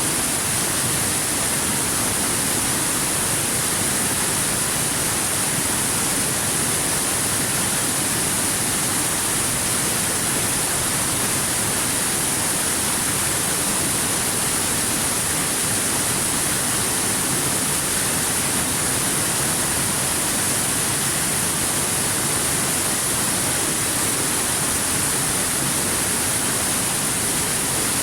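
River water flowing over rocks, a steady unbroken rush with a bright hiss on top.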